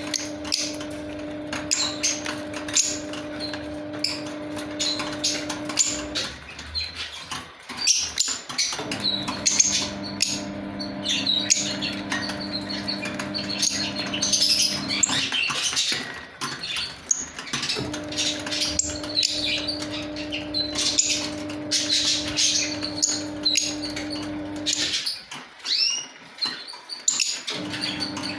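Lovebirds chattering with a constant stream of short, high-pitched chirps and squeaks. A steady low hum sounds underneath for stretches of several seconds, cutting out briefly about six, fifteen and twenty-five seconds in.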